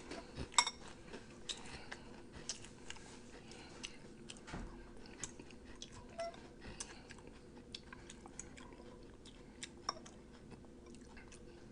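A person chewing food with the mouth close to the microphone: quiet, irregular wet clicks and smacks.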